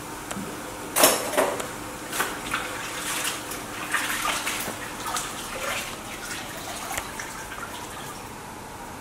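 Washing up at a kitchen sink: water splashing and running, with utensils and dishes knocking irregularly, the loudest a sharp clatter about a second in.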